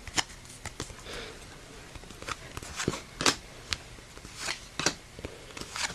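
Yu-Gi-Oh trading cards being flipped through by hand: a run of irregular short card flicks and slides, about one every half second to a second.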